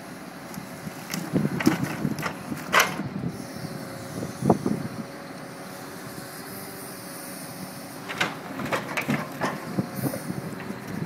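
Lorry-mounted hydraulic timber crane unloading logs: a steady hum from its hydraulics, with hard knocks and clatter of logs as the grab drops and picks up firewood, in bursts about a second in, once around four seconds, and again from about eight seconds in.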